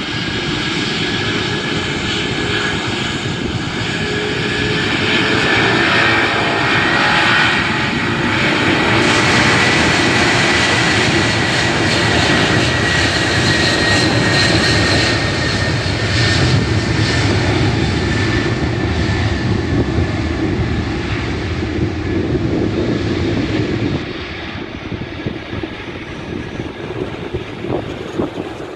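The four D-18T turbofans of an Antonov An-124-100 Ruslan running at takeoff thrust during its takeoff roll: a loud, heavy rumble with a high whine on top. The whine rises a little as the aircraft passes and then sinks. The sound is loudest mid-way and drops away in the last few seconds.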